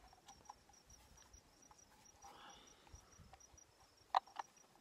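Mostly quiet handling of a bolt and washer being slid into the hole of a Timbren rubber bump stop: faint scattered metal clicks, with two sharper clicks about four seconds in.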